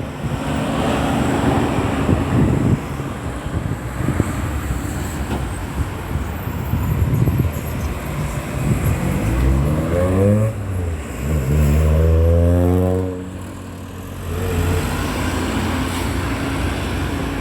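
Road traffic at a busy roundabout. About halfway through, a vehicle engine accelerates, its pitch rising, runs loudly for a few seconds and then falls away.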